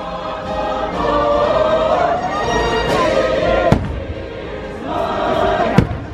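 Show music with a choir singing sustained notes, broken by three sharp firework bangs: a faint one just under halfway and two strong ones, about two-thirds of the way through and near the end.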